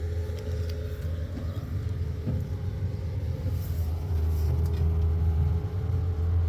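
Engine running steadily, a low rumble with a constant hum, growing a little louder about four seconds in.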